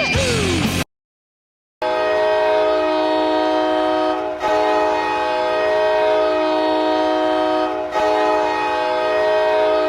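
After a brief gap of silence about a second in, an ice-hockey goal horn sounds a loud, steady chord of several tones in three long blasts separated by short breaks.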